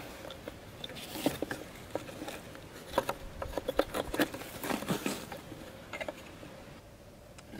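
Irregular light clicks, taps and rustles, like movement in dry leaves and twigs on sandy ground around a wooden box trap, busiest in the middle and thinning out near the end.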